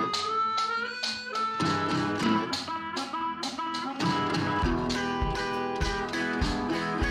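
Background music: a guitar-led tune with a steady beat. The bass and drums drop out for about the first second and a half, then come back in.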